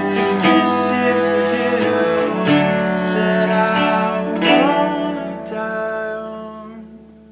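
Instrumental ending of an indie-folk song: acoustic guitar strummed through a few chord changes, then a last chord left ringing that fades out near the end.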